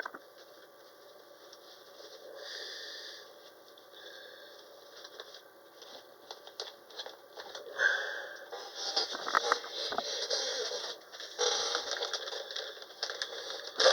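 Rustling, scraping and light clicking of packaging being handled and opened. It is faint at first and turns busier and louder about eight seconds in.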